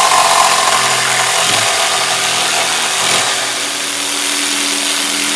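Corded jigsaw running and cutting through a thick wooden slab: a steady motor hum with the noise of the reciprocating blade chewing through the wood.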